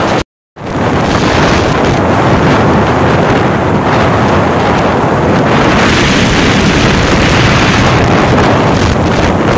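Wind rushing hard over the microphone of a phone filming from a moving motorbike, a loud steady roar with road and engine noise mixed in. The sound cuts out completely for a split second just after the start.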